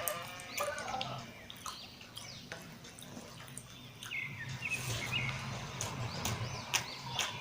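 Close-up eating sounds of mutton curry and rice being chewed: wet chewing and lip smacking, with many short sharp clicks.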